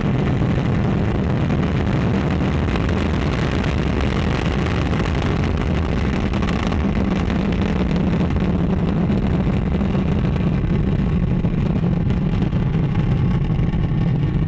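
Ariane 5 ECA rocket climbing just after lift-off, its two solid rocket boosters and Vulcain main engine making a loud, steady, deep rumble.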